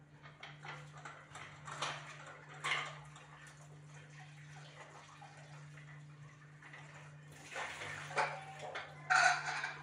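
Kitchen tap running while a pressure cooker lid is rinsed at the sink. There are two metal clatters in the first few seconds, and the water rushes louder near the end.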